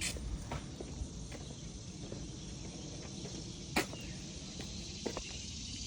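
Faint steady background noise with a few light clicks and taps scattered through it, the sharpest a little before four seconds in.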